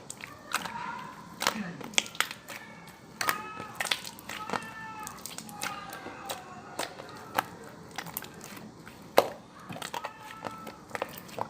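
Slime being squeezed and poked by hand, giving a string of sharp pops and clicks. A voice is heard faintly behind it.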